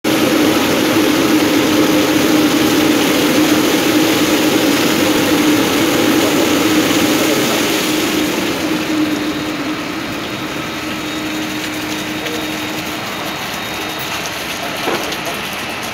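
Diamond saw blade of a Breton Huracan slab-cutting machine cutting a 12 mm ceramic slab under water spray: a loud, steady grinding hiss with a humming tone. About two-thirds of the way through the noise eases and the hum fades as the slab moves past the blade.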